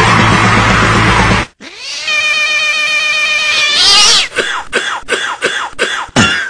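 Loud music stops abruptly about one and a half seconds in. A cat's drawn-out, wavering yowl follows, then quick repeated meows, about three a second, each gliding down in pitch.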